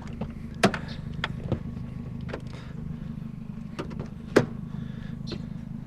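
A car engine idles with a steady low hum, while sharp knocks and clacks of hard objects being handled come about half a dozen times, the loudest near the start and about four seconds in.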